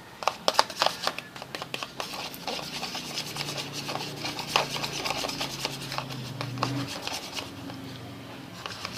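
Thick mixture of dish soap and shampoo being stirred in a container: irregular scraping and rubbing strokes of the stirrer against the container.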